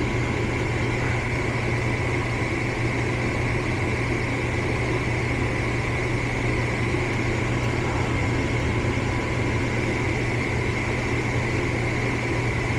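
Gas furnace's motor running with a steady hum and a thin, steady high tone over it.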